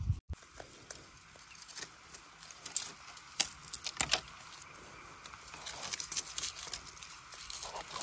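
Dry bamboo stalks and burnt leaf litter crackling and clicking in scattered sharp snaps as a person pushes through a dry bamboo clump and steps on the debris, the crackles coming thicker in the second half.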